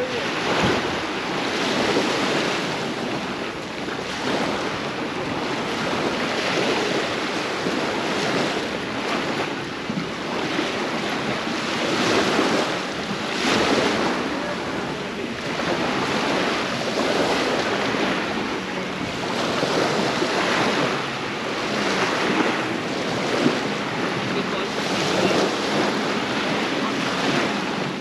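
Ocean surf breaking and washing ashore, rising and falling every couple of seconds, with wind buffeting the microphone.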